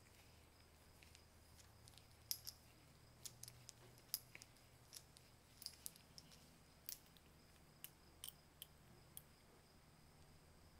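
Small flat screwdriver working a rusty screw out of an old lighter part: irregular sharp little metal clicks and ticks, over faint room tone.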